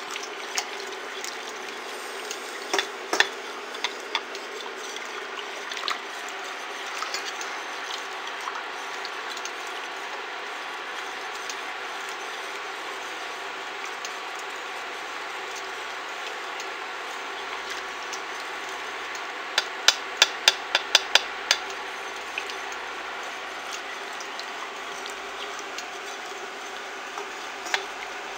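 Plastic spatula stirring hot borax solution in a stainless steel saucepan, scraping and clicking against the pan over a steady hiss. A few sharp clicks come about three seconds in, and a quick run of about ten clicks comes about two-thirds of the way through.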